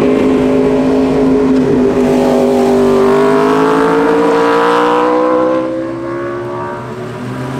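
Sport motorcycle engine accelerating, its pitch rising steadily for about five seconds, then fading away and quieter near the end.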